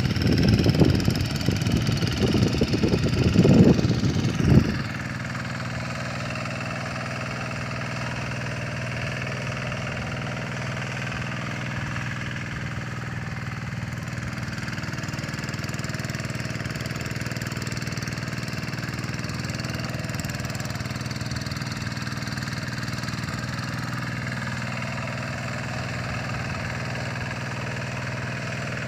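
A small engine running steadily at an even pace. Over the first five seconds a loud irregular low rumble sits on top of it and then stops abruptly.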